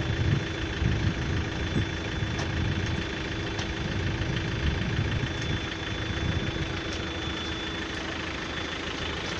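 Vehicle engine running at idle: a steady low rumble under a constant hum, with a steady high whine that stops about eight seconds in.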